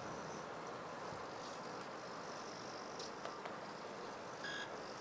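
Small electric motors of a robot worm buzzing faintly as it crawls, with a short high whine near the end.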